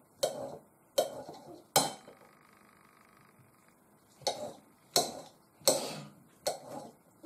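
Short sharp knocks of a utensil against a ceramic bowl while chopped mushroom pieces are handled: about seven clicks, three close together, a pause of about two seconds, then four more.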